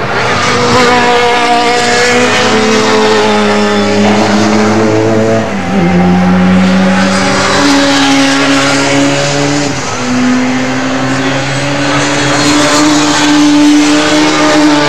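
Race car engine running hard, its note stepping up and down in pitch with repeated gear changes and throttle changes.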